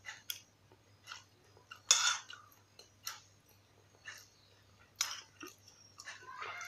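Eating sounds: a metal spoon clinking and scraping against a glass bowl, with chewing between. Short clicks come about once a second, the loudest about two seconds in.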